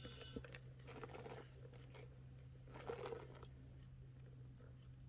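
Faint handling sounds of a crossbody handbag and its strap: light rustling and a few soft clicks over a steady low hum.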